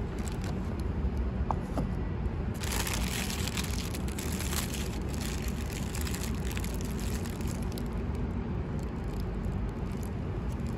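Outdoor city ambience: a steady low rumble of road traffic, with a stretch of louder hiss lasting a couple of seconds, starting about two and a half seconds in.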